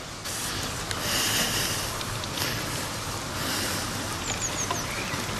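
Outdoor ambient noise: a steady rushing hiss that steps up just after the start, with a small bird giving four quick falling chirps a little past four seconds in.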